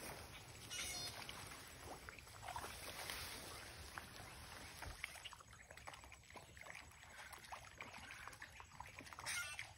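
Alligator crawling over leaf litter and mud into shallow water at a pond's edge: faint scattered crackling and rustling with soft sloshing.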